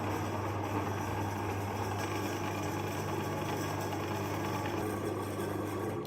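Electric meat grinder's motor running with a steady hum.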